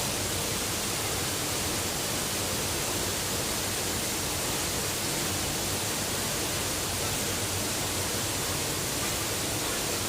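Waterfall: a steady rush of falling water with an even hiss across the range.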